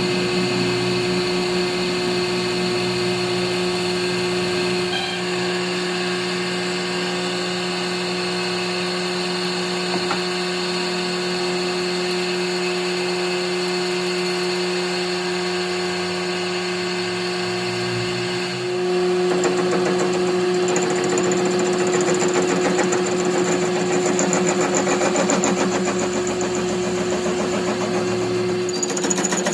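Metal lathe running, spinning an engine crankshaft, with a steady motor hum. About two-thirds of the way in it gets louder and rougher, with a fast flutter over the hum.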